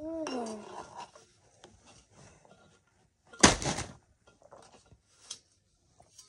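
A person's hummed note slides down and fades in the first moment. Then come faint small clicks and, about three and a half seconds in, one short, loud burst of scuffing noise, the loudest sound here.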